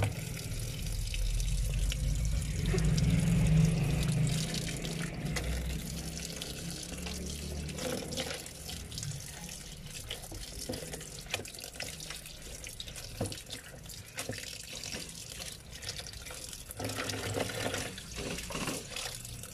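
Water sloshing and splashing as tie-dyed shirts are rinsed by hand in a plastic basin, the wet fabric squeezed and rubbed in the water. The sound is louder and fuller for the first several seconds, then settles into softer splashes.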